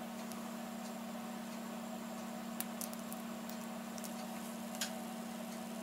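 A few faint, sharp clicks and taps from handling a small electronic part, the iPad 2's LCD panel being lifted out, over a steady low hum.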